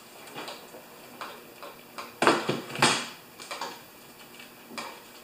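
Scattered clicks and knocks of a cordless drill and hand tools being handled and set down on a wooden work table, with two louder knocks a little over two and about three seconds in.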